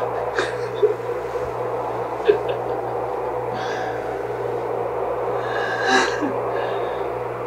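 A steady low hum under a hiss, broken by a few brief sharp sounds: one about half a second in, one a second in, one a little past two seconds, and a longer one about six seconds in.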